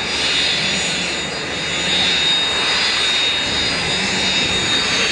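Jet engines of an amphibious aircraft running steadily: an even rushing noise with a constant high whine.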